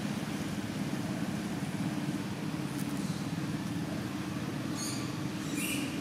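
Steady low rumble of background noise, with a couple of short high-pitched chirps near the end.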